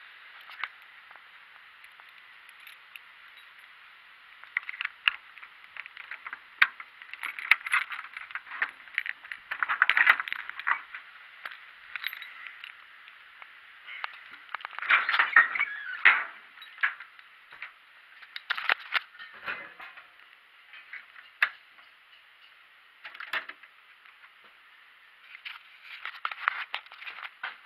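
Rustling, clicks and clinks of walking and handling: footsteps on dirt and grass with keys jangling, in irregular bursts, the loudest about ten and fifteen seconds in.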